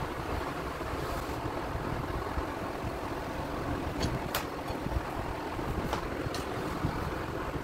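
Steady low workshop noise, with a few light metallic clicks between about four and six and a half seconds in as the front brake caliper is worked loose and lifted off the disc.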